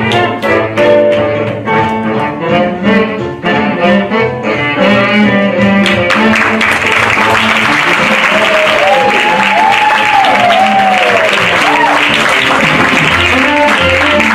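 Instrumental music with a quick run of picked or struck notes gives way about six seconds in to an audience applauding, with a few cheers rising and falling over the clapping.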